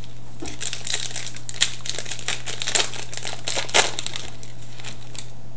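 Trading-card pack wrapper crinkling and crackling as it is handled and opened, a dense run of crisp crackles from about half a second in until about four seconds in.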